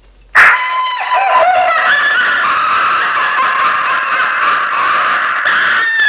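Boom Blasters Witch Maniacal Laughing Sounds car horn, an electronic novelty horn powered from a 12-volt battery, playing a witch's maniacal cackling laugh through its speaker. It starts abruptly about half a second in and plays loud and continuous.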